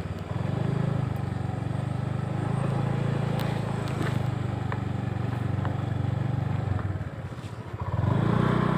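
Motorcycle engine running at a low, steady pitch while riding slowly. It goes quieter for about a second some seven seconds in, then picks up again near the end.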